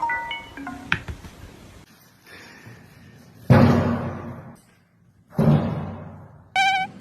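Two heavy slams about two seconds apart, each ringing out for about a second; a short electronic tune starts near the end.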